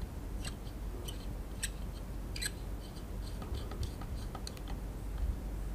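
A precision screwdriver turning a tiny screw into the opened remote controller's metal frame: a series of irregular light clicks and ticks.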